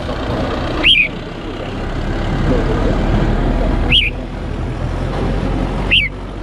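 Red-whiskered bulbul giving three short, sharp chirps a couple of seconds apart, over a steady background rumble.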